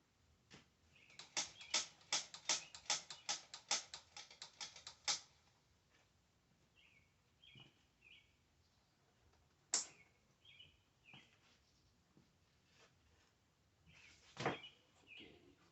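Ratchet wrench clicking rapidly, about five clicks a second for some four seconds, as the spark plug is turned. Then a single sharp knock near the middle and a heavier knock near the end, with birds chirping faintly in between.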